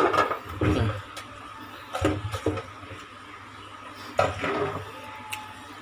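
Hard plastic packaging being handled: a few knocks and scrapes as the mini RC truck is lifted off its black plastic display base, with a small click near the end.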